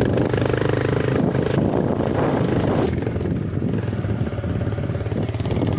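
TVS Raider 125 motorcycle's single-cylinder engine running steadily.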